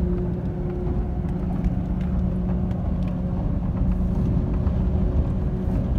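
Road noise and engine hum heard inside a car's cabin while it drives along a highway: a steady low rumble with a constant low drone.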